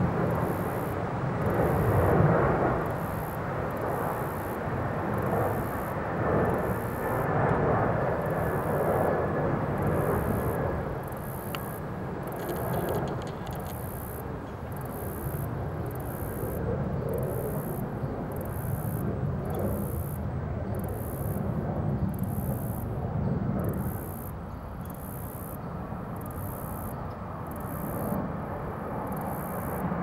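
A low engine rumble that swells and fades, with a faint tone slowly falling in pitch over the first half. Over it, high-pitched insect chirps repeat about once a second.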